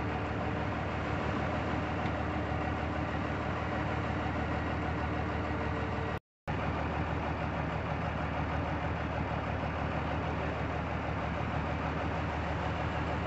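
Heavy machinery engine running steadily at idle, a low even drone, cut off by a brief dropout to silence about six seconds in.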